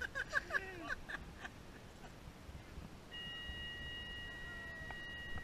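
A short high-pitched voice in the first second or so, then a steady high-pitched tone that starts about three seconds in and holds.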